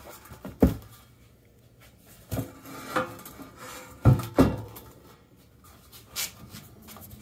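Steel frame rails being handled on a wooden workbench: about half a dozen separate knocks and clunks, the loudest a close pair about four seconds in, with quiet rubbing between them.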